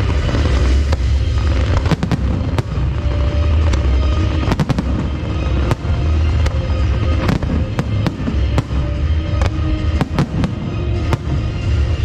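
Fireworks show: aerial shells bursting in quick, irregular succession with sharp bangs and crackles, over music with a heavy bass.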